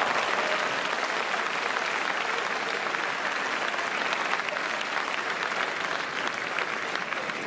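Crowd in a sports hall applauding after a point is won, a steady wash of many hands clapping with single claps standing out.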